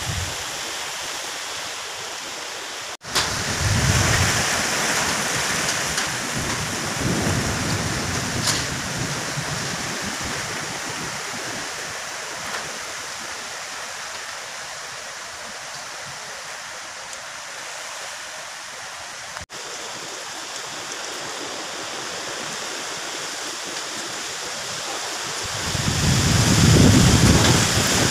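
Strong storm wind rushing through palms and trees, a steady noise with gusts that buffet the microphone in low rumbles. The heaviest gust comes near the end.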